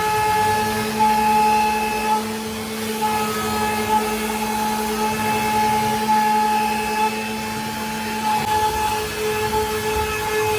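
CNC router's spindle running while carving wood: a steady motor whine with a hiss of cutting, its higher tones fading in and out as the load changes.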